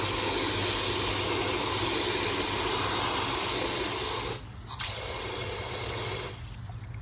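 Water running with a steady hiss that cuts out about four and a half seconds in, comes back briefly, then stops about six seconds in.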